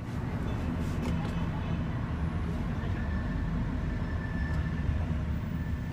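Steady low rumble of a moving vehicle, with a faint high thin tone running above it.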